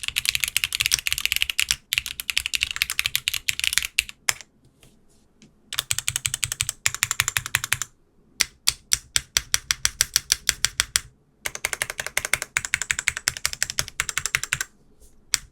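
Fast typing on a custom LX60 aluminium mechanical keyboard with lubed Cherry MX2A Black linear switches: dense runs of sharp, clacky keystrokes broken by short pauses, with a stretch of evenly spaced single strokes about halfway through.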